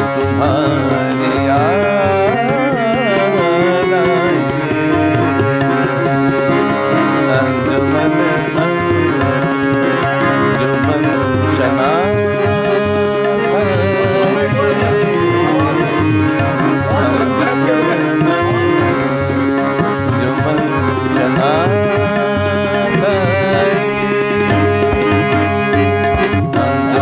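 Ghazal accompaniment: tabla keeping a steady rhythm under sustained harmonium chords, with an ornamented melody that slides up and down in pitch several times.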